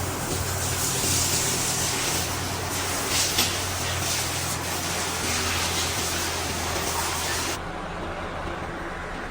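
Steady machine noise: a hiss over a low hum, with a few light clicks. The hiss drops away suddenly about three-quarters of the way through, leaving the hum.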